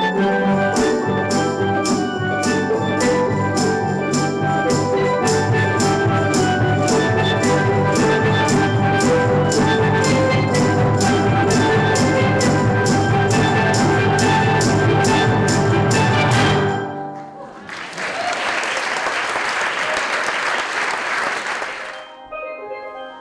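Steel drum band playing a piece over a steady beat of about two strokes a second; the music stops about 17 seconds in and the audience applauds for about four seconds. A few steel pan notes sound near the end.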